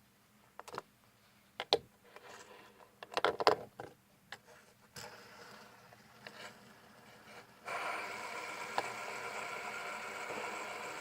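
Fidget spinners handled with a series of sharp clicks and knocks, then one flicked into a spin: a steady whir from its bearing that starts suddenly about three-quarters of the way in.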